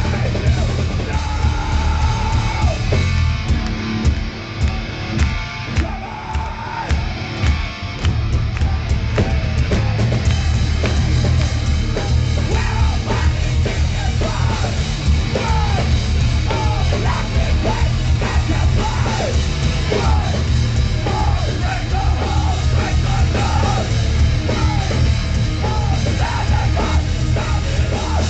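Hardcore punk band playing live: distorted electric guitars, bass and drums under a shouted lead vocal. About three seconds in, the band drops to stop-start hits for several seconds, then comes back in at full force.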